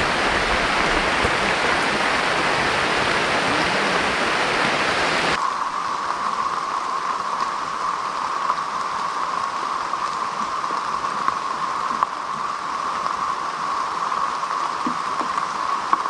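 Heavy rain falling steadily on open water and foliage, an even hiss. About five seconds in the sound changes abruptly to a thinner hiss, with a few faint drip ticks.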